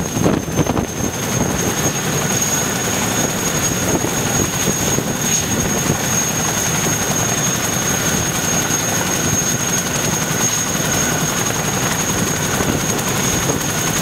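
Large tandem-rotor helicopter running with its rotors turning, giving steady rotor noise with a thin, high turbine whine over it.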